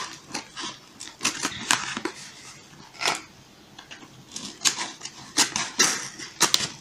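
Scissors cutting open a padded mailer envelope: a run of short, crisp snips at an irregular pace.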